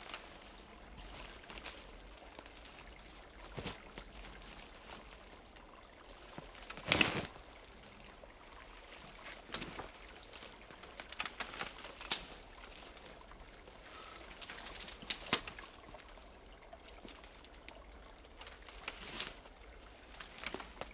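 A shallow, half-frozen forest stream trickling steadily through leaves and ice, with scattered sharp clicks and crackles over it. The loudest click comes about seven seconds in.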